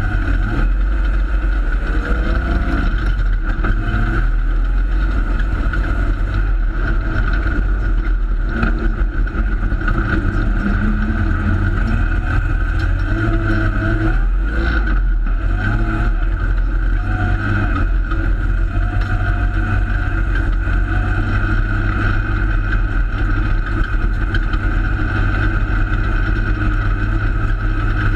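Holden Torana race car's engine heard from inside the cabin under racing load, its pitch rising and falling as it revs through the turns, over a steady loud din of wind and tyre noise.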